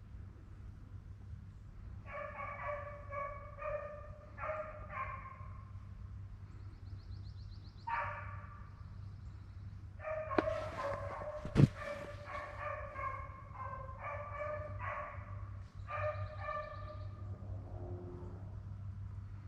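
Rabbit hounds baying as they run a rabbit's track, giving repeated short bawls in bunches, with a pause of a few seconds between runs of calls. A single sharp crack sounds about two-thirds of the way through, the loudest moment.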